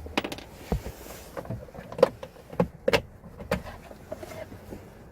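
A string of irregular sharp clicks and knocks, plastic trim around the steering column being handled and worked loose to get at the immobilizer module.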